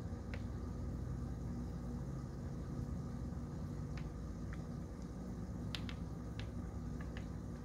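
Steady low room hum with scattered light clicks, several bunched a little past the middle: a hermit crab's legs and shell tapping on the plastic tub as it walks.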